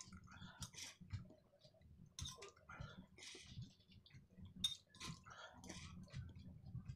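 Faint eating sounds: a metal spoon clicking and scraping in a bowl, with short slurps and chewing of sardine and miswa noodle soup, in irregular soft bursts.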